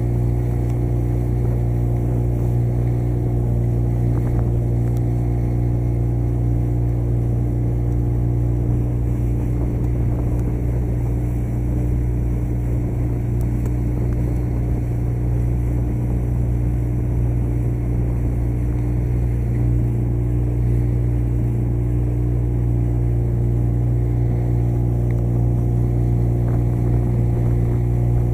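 Small motorboat's engine running at a steady cruising speed, a constant even hum that does not change pitch.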